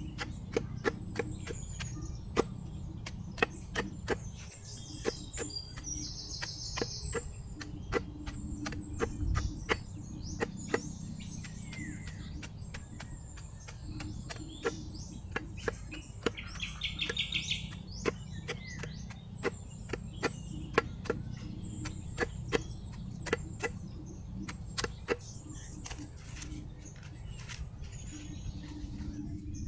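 Bolo knife chopping and paring a latundan banana sucker's corm: a run of sharp, irregular cuts, about two a second, over a low rumble. A bird chirps briefly twice.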